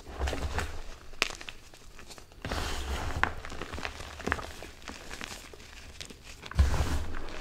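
Hands squeezing, crushing and sifting loose gym chalk powder: soft crunching and crumbling with little crackles, in three louder spells with low muffled thumps, just after the start, about two and a half seconds in, and near the end.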